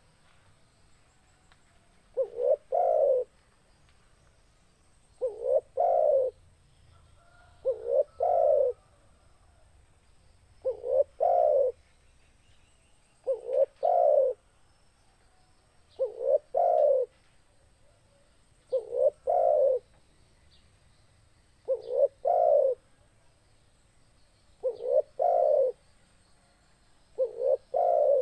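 Spotted dove (tekukur) cooing its song over and over, one phrase about every two and a half to three seconds. Each phrase is a couple of short quick notes followed by one longer coo.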